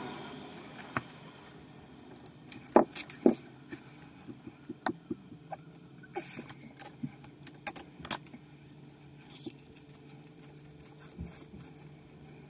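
Steel armour wires of an SWA cable and hand tools clinking and clattering as the armour is worked back, in scattered sharp metallic clicks, the loudest two close together about three seconds in. A steady low hum runs underneath.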